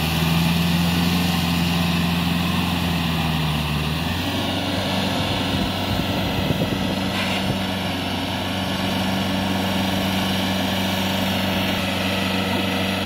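Kubota L4508 tractor engine running steadily under load while it pulls a rotary tiller through flooded paddy mud. Its note changes about four seconds in.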